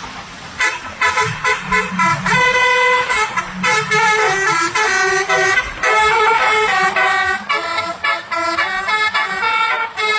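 Basuri multi-tone 'telolet' bus air horn playing a quick melody of changing notes, starting about half a second in.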